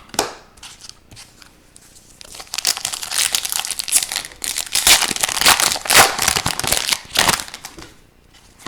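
Wrapper of a hockey card pack crinkling and crackling as it is handled and torn, a dense crinkle from about two and a half seconds in until near the end, with a few light clicks before it.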